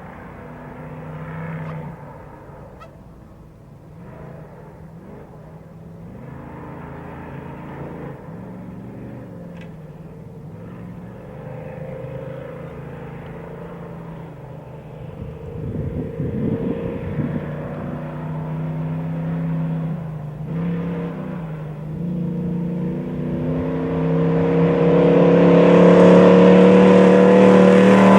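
Off-road race vehicle engine running hard, its pitch climbing and dropping as it revs and shifts. It starts distant and grows steadily louder over the last several seconds as the vehicle approaches.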